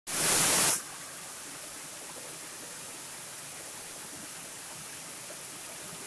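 Small waterfall over rock ledges, a steady even rush of falling water. A brief loud burst of noise fills the first second before the water settles in.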